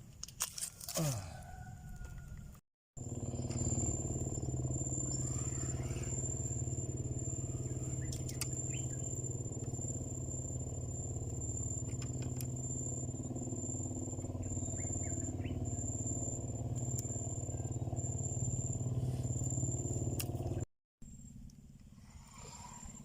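A steady engine drone that holds one even pitch. It cuts in abruptly about three seconds in and stops abruptly near the end.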